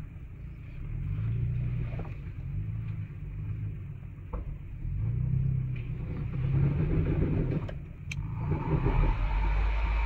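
Off-road vehicle's engine crawling slowly over a rocky trail, heard from inside the cab: a low rumble that swells and eases with the throttle, with a few sharp knocks. Near the end the rumble turns steadier and louder.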